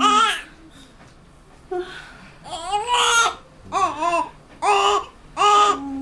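Newborn baby crying in short, high wails: one at the start, a pause of about two seconds, then a quick run of four or five cries.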